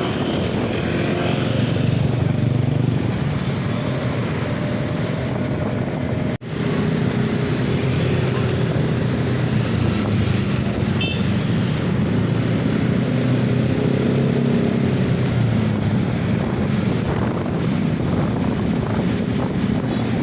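Roadside traffic: vehicle engines running steadily, with a sudden brief gap about six seconds in.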